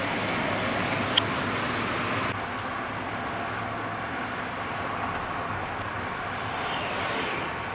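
Steady road and engine noise heard from inside a car's cabin at highway speed, with one short, sharp high chirp about a second in. The noise drops slightly and changes character a little over two seconds in.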